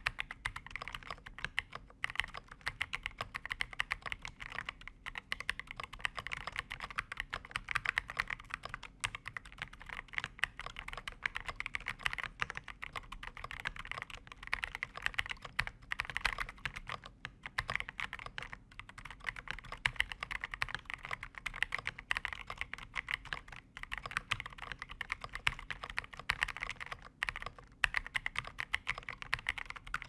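Continuous typing on a FancyAlice 66 mechanical keyboard with a stacked acrylic case, lightly lubed JWK Epsilon linear switches and dye-sub PBT KCA-profile keycaps: a fast, steady run of key clacks with only brief pauses.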